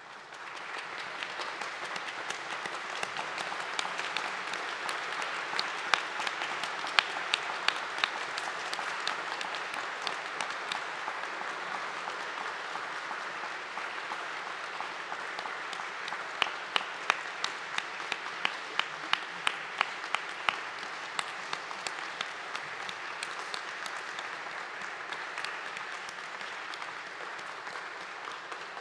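Audience applauding steadily after a drum performance, starting abruptly out of silence. Some single claps close to the microphone stand out, at one point in an even rhythm of about two or three a second.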